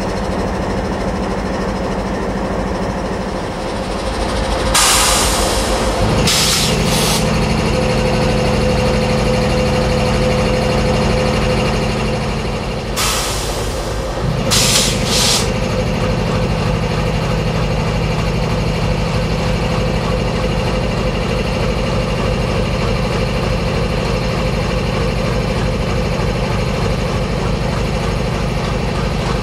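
MLW MX636 diesel-electric locomotive's ALCO 251 V16 engine running while standing, its note rising about six seconds in and settling back about fourteen seconds in. Two loud hisses of air, about five and thirteen seconds in, each followed by a couple of shorter ones.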